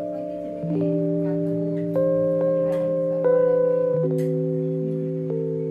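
Background music: soft, sustained instrumental chords that change every second or so.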